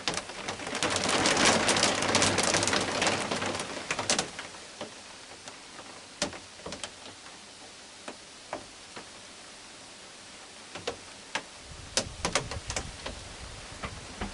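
Rain falling, with a louder rush of rain for the first four seconds, then lighter rain with scattered drops tapping close by.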